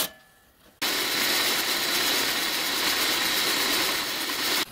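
A short sharp click at the start, then from about a second in a milling machine running, its end mill skimming a metal angle flat: a steady, loud cutting noise that stops suddenly at the end.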